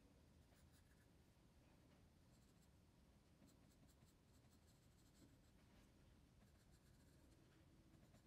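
Faint scratching of a graphite pencil on paper: repeated short shading strokes of a Staedtler pencil, hatching on a sketch.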